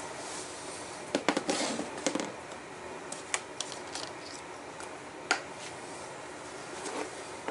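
Handling noise: a quick cluster of light clicks and knocks about a second in, then single sharp clicks every second or so, one near the middle louder than the rest.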